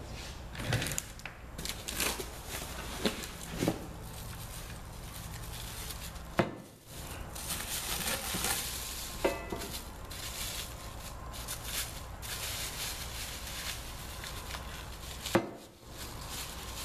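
Unpacking and handling of boxed drill press parts: crinkling of packing material and scattered clinks and knocks of metal parts, with two sharper knocks about six and fifteen seconds in.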